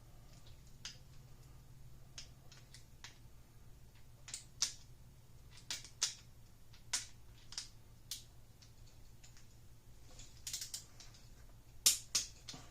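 Click-type torque wrench ratcheting as a cylinder head stud is tightened, giving sharp irregular clicks with a cluster near the end. A faint steady low hum sits underneath.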